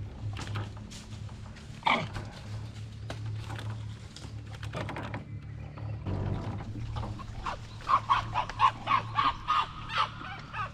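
A wild animal calling: a loud falling cry about two seconds in, scattered short cries, then a quick run of short cries, about three a second, in the last few seconds. A steady low hum runs underneath.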